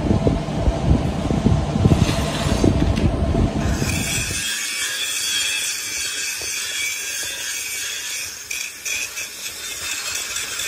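Metalworking noise: a low rumble with irregular knocks for about four seconds, then abruptly a high-pitched, hissing grind of a power tool working steel.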